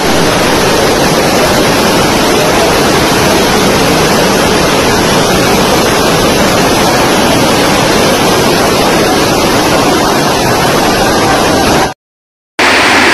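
Floodwater rushing in a torrent down a paved walkway, with heavy rain: a loud, steady rush of water that breaks off for a moment near the end and then carries on.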